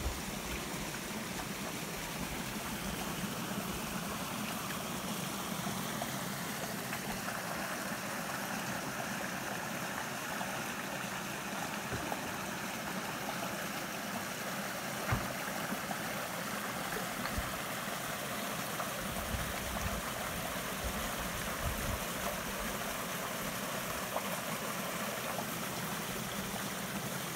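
Small woodland brook flowing over rocks: a steady rush of running water, with a few soft low bumps.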